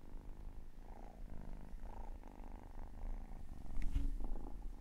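Domestic cat purring: a low, steady rumble, with a brief soft knock about four seconds in.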